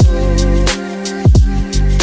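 Background music with a steady beat: a hip-hop style track with deep kick drums that fall in pitch and crisp hi-hat hits.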